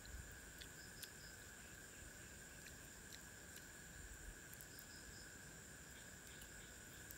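Faint steady chorus of night insects in the forest, two unbroken high-pitched tones, with a few scattered faint ticks.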